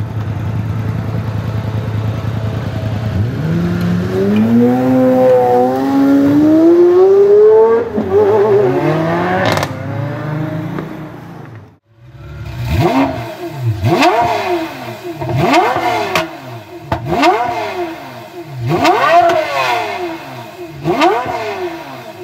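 Pagani Zonda 760 LM Roadster's 7.3-litre AMG V12 rumbling at low revs, then accelerating hard away, its pitch rising through a gear change before fading into the distance. About twelve seconds in it cuts to a supercar engine being sharply revved over and over, about once a second.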